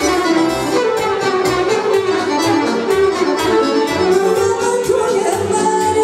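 Live Balkan folk dance music: an accordion playing the melody over a steady drum beat.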